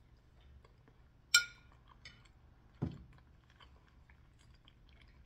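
A metal fork clinks sharply once against a ceramic plate about a second in, followed by a duller knock a second and a half later. Soft chewing of lasagna in between.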